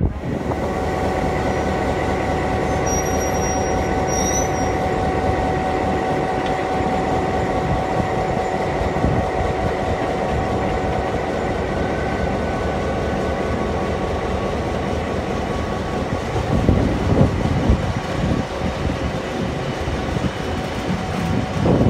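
Heritage diesel train led by NSW 42 class locomotive 4201 passing at close range, its engines giving a steady hum with level tones. From about sixteen seconds in this gives way to uneven rumbling and clatter as the wagons roll by.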